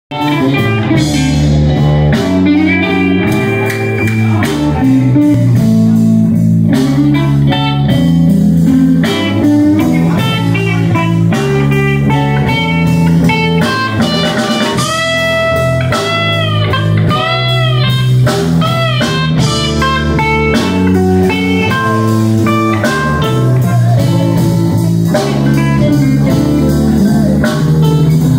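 Live blues band playing: electric guitar lead over a steady bass line and drums, with long bent guitar notes about halfway through.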